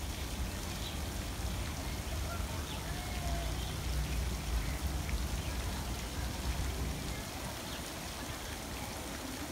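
Garden-pond fountain jets spraying and splashing down onto the water, a steady rain-like hiss, with a low rumble underneath.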